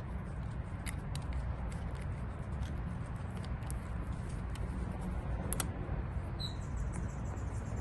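Scattered light clicks and taps from handling a cordless drill and a double-ended screw-extractor bit, as the bit is taken out of the chuck, turned around and put back in. A steady low rumble runs underneath.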